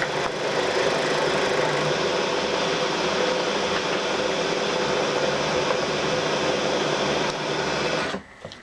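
Milling machine running steadily while cutting down the top of a metal block, then stopping about eight seconds in, followed by a few light clicks.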